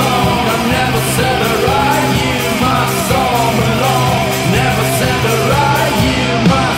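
Loud rock music with singing over distorted guitars, bass and drums, with sharp drum hits near the end.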